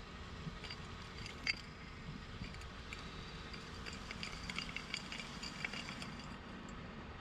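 Sandy dirt pouring from the tipped bed of an RC scale dump trailer onto pavement: a patter of small ticks and clinks as clods and grit land, thickest a few seconds in and thinning out near the end, over a low steady hum.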